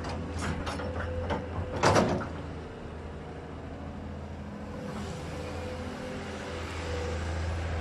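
Hydraulic excavator's diesel engine running steadily while the bucket digs into rocky soil, giving a few sharp knocks and then a loud scrape of earth and stone about two seconds in.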